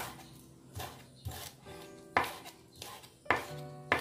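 A knife chopping spring onion on a wooden cutting board: a series of sharp knocks at uneven spacing, roughly one a second, over soft background music.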